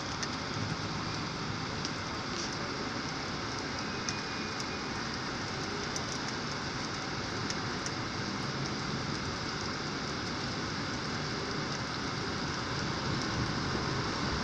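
Heavy rain falling on a street: a steady hiss with scattered drop ticks. It grows a little louder near the end as a car drives along the wet road.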